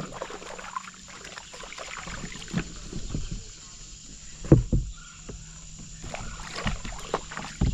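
Kayak paddling: the paddle blades splash and drip in shallow water, and the paddle knocks against the kayak now and then, loudest in a double knock about halfway through.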